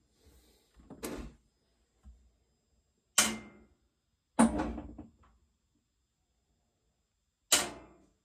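Three sharp knocks or clunks, each dying away within about half a second, with a softer knock about a second in and near silence between them; no steady running or grinding is heard.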